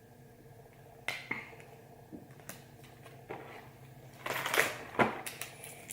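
Trading cards being handled: a few light clicks and taps as cards are flipped, then a brief, louder rustle a little past halfway.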